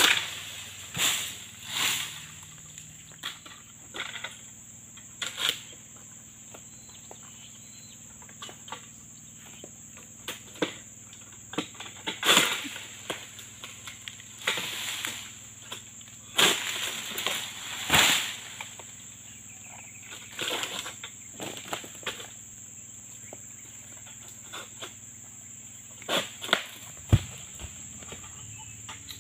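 Long-pole harvesting sickle hacking and pulling at oil palm fronds and fruit-bunch stalks: irregular sharp cuts and scrapes with rustling swishes of the fronds, over a steady high-pitched drone.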